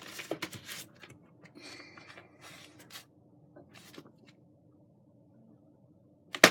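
Light rustling and scratching handling noises, scattered through the first few seconds, then a single sharp knock near the end.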